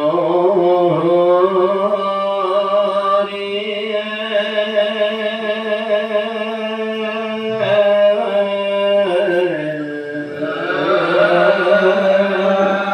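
A congregation chanting naam together in the Assamese Ekasarana style (pal naam), the voices drawing out long held notes that step up and down in pitch over a steady low held tone. The chant breaks off briefly about seven and a half seconds in, then resumes and swells fuller near the end.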